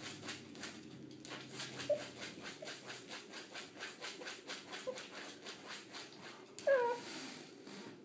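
Cocker spaniel puppy eating at a bowl: a steady rhythm of about four mouthfuls a second, with a couple of faint whimpers. Near the end comes a short falling whine, the loudest sound.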